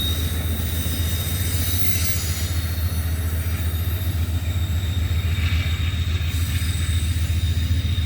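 Amtrak passenger train rolling slowly uphill through a tight curve: a steady low rumble with a continuous high-pitched squeal from the wheel flanges grinding against the curved rail.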